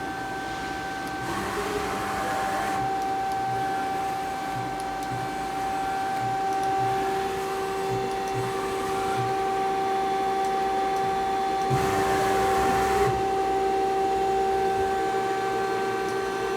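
Hwacheon Hi-Tech 200A CNC turn-mill running under power: a steady mechanical whine with a lower tone that rises and settles about a second in. Two noisy stretches lasting a second or more come about a second in and near the twelve-second mark.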